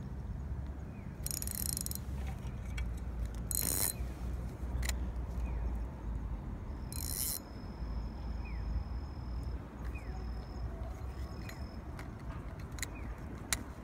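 A spinning reel and fishing rod being handled: three short hissing whirs and scattered mechanical clicks over a steady low rumble on the microphone.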